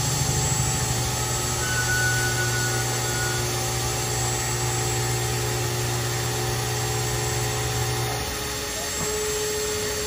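Handheld cordless cutting tool running steadily as it cuts into a car's metal exhaust pipe to trim it. Its low hum drops out about eight seconds in.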